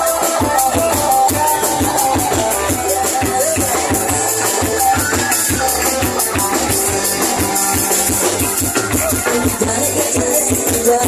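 A band playing a song: a drum kit keeping a steady beat under a melody line, at a constant loud level.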